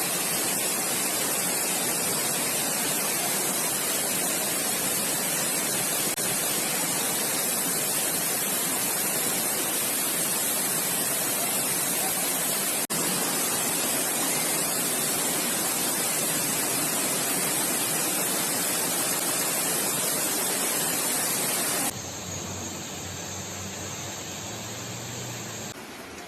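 Loud, steady rush of water in heavy rain and flooding. About 22 seconds in it drops to a quieter hiss with a faint low hum.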